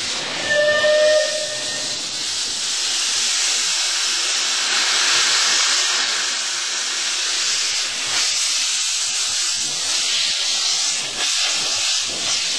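Steam locomotive FNM 200.05 (Couillet, 1883) gives a short whistle blast about half a second in, then a steady hiss of steam blowing out at track level.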